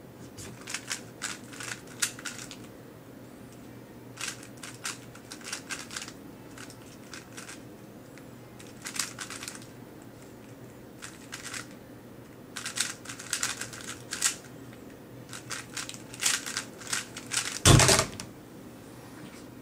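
A speed cube being turned fast: bursts of rapid clicking from its layers, with short pauses between. Near the end comes one loud thump, the hands slapping down on the Stackmat timer's pads to stop the solve.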